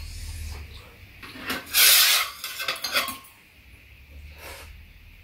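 Metal spoons and chopsticks clinking and scraping against bowls while eating soft-tofu stew: a string of short clicks, the loudest a half-second scrape about two seconds in.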